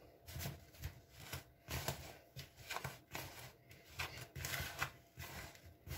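Hand mixing a dry, crumbly filling of ground peanuts, almonds and sugar in a plastic bowl. The fingers rub and scrape through it in a soft, uneven rustling, about two strokes a second.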